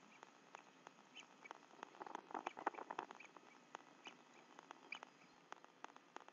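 Raindrops tapping irregularly on the nest camera and twigs, a sharp tick every few tenths of a second, thickening into a denser patter about two to three seconds in.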